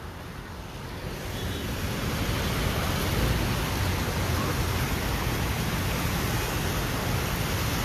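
Steady rushing noise, heaviest in the low end, which swells about a second in and then holds level.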